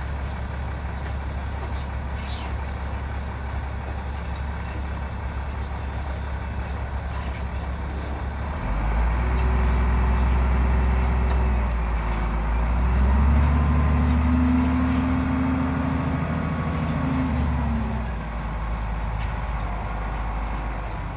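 SDLG wheel loader's diesel engine running at a low, steady speed, then revving up about nine seconds in and higher still from about thirteen seconds as the loader climbs the ramp and lifts its loaded bucket of sand, easing back a few seconds before the end.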